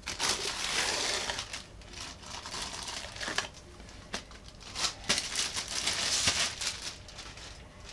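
Clear plastic packing bag crinkling and rustling as a speaker column spacer is pulled out and unwrapped. The crinkling comes in two spells, at the start and again about five seconds in, with a few light knocks between.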